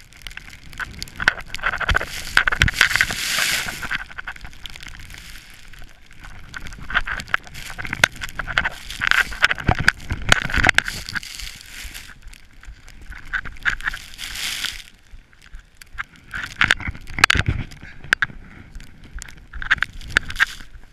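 Skis carving and sliding through deep powder snow, mixed with wind buffeting and rustling on the microphone. The sound comes in uneven surges of hiss and crackle as the skier makes turns down the chute.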